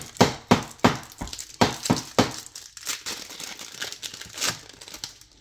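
Plastic wrapper of a Topps Chrome trading-card pack being torn open and crumpled: a quick run of sharp crinkles, about three a second for the first two seconds, then sparser.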